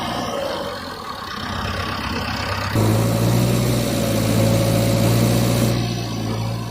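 Vehicle engine sound effect: a steady low engine hum, switching abruptly about three seconds in to a louder engine run for about three seconds, then back to the quieter hum.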